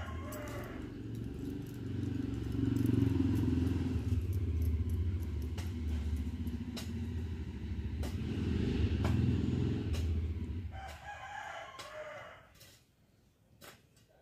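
A rooster crowing, one call ending just after the start and another about eleven seconds in. Under it a loud low rumble runs for about ten seconds and then dies away.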